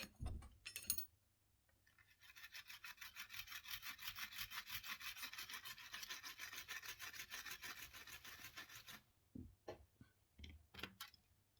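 Quick back-and-forth rubbing strokes by hand, about six a second for roughly seven seconds, a small tool or abrasive worked over a small object, then a few light knocks.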